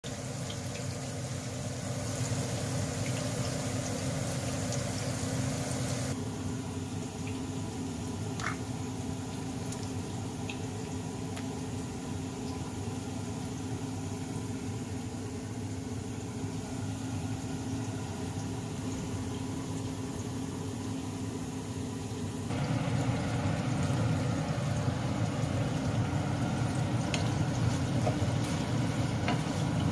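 Chopped onions and garlic sizzling in oil in a frying pan over a steady low hum. About six seconds in the sizzle drops out, leaving mostly the hum. About 22 seconds in, beef cubes frying with the onions come in louder, with light scraping clicks as a wooden spatula stirs them.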